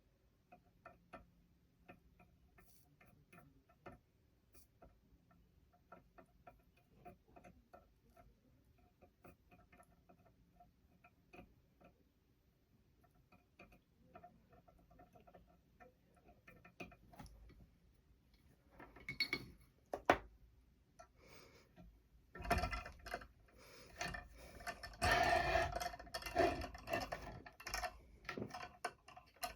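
Small parts and tools being handled on a workbench: scattered light clicks and taps, one sharp click about twenty seconds in, then louder rustling and clattering for the last several seconds.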